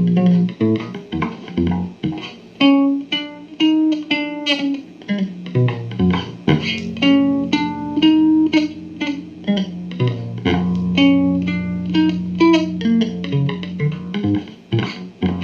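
Instrumental music on plucked guitar: a run of short picked notes over held low bass notes.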